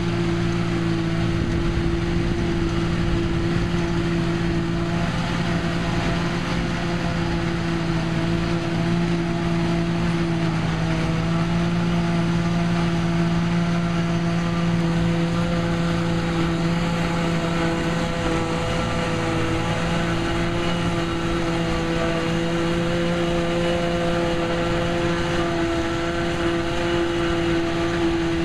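A New Holland TM tractor running steadily under load, powering a JF trailed forage harvester as it chops grass and blows it into a silage trailer, with the trailer tractor running alongside. The sound is a steady machine drone with several held tones.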